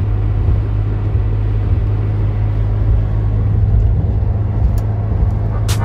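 Cabin noise of a 1998 Jeep Grand Cherokee ZJ driving at highway speed: a steady low drone of engine and road noise. Music cuts in just at the end.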